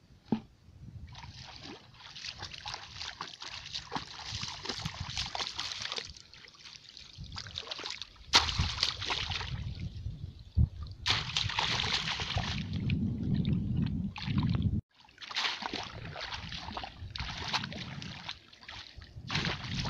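Shallow muddy water splashing and sloshing as a person wades through it and plunges a woven bamboo plunge-basket fish trap into the water. There are a few sharp knocks, the loudest about eight seconds in.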